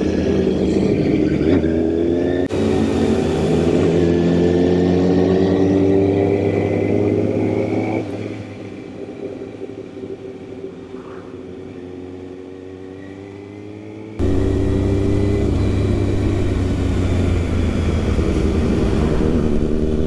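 Kawasaki Ninja ZX-6R inline-four engine pulling through the gears, its pitch climbing steadily with a quick break for an upshift a couple of seconds in. Midway it goes much quieter for several seconds, then comes back loud and climbing again.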